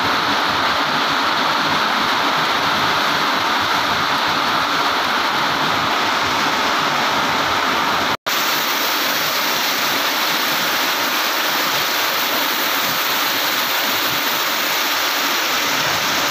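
Heavy rain falling: a steady, even hiss, with a brief gap about eight seconds in.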